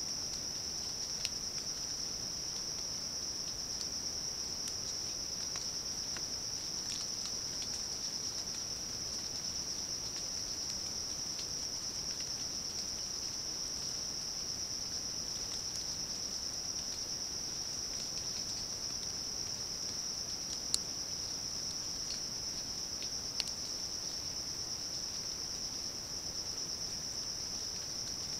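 Steady insect chorus: a continuous high shrill at one pitch, with a few short ticks, the sharpest about three-quarters of the way through.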